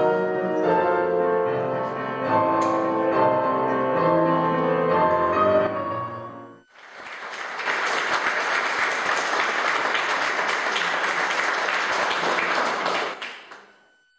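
Instrumental music with held chords stops about halfway through, followed by an audience applauding, the applause fading away near the end.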